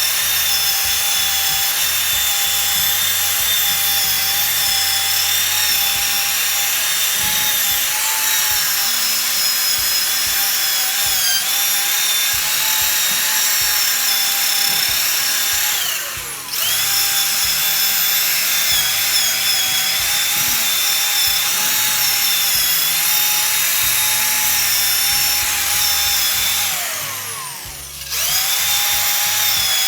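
An electric drill fitted with a wire brush spins at a steady high whine while scouring the inside of an MTZ-80 tractor engine. About halfway through it is eased off briefly and spins back up. Near the end it winds down with a falling pitch and then starts again.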